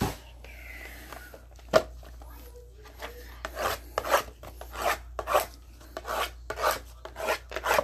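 A small knife blade slicing and scraping open sealed cardboard trading card boxes, in a run of short rasping strokes about two or three a second, with a single sharp click a little under two seconds in.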